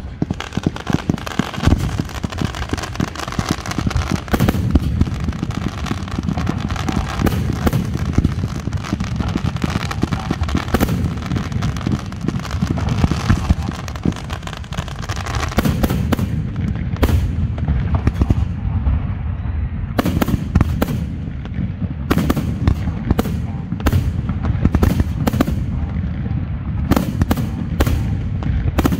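Professional fireworks display: comets and aerial shells launching and bursting in a dense, continuous barrage of crackling and bangs. From about halfway through it turns into a quick series of separate sharp bangs, several a second at times.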